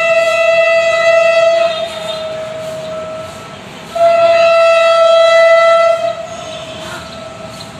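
Horn of a Philippine National Railways diesel locomotive sounding as the train approaches: one long blast that ends under two seconds in, then a second loud blast about four seconds in, lasting about two seconds, both on the same single note.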